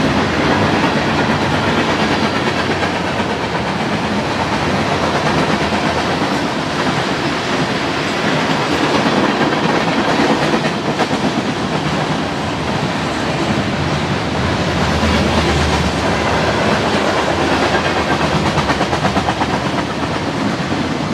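Mainline freight train of refrigerated boxcars and tank cars rolling past at speed: a steady loud rumble of steel wheels on rail, with a quick, continuous clacking as the wheels cross the rail joints.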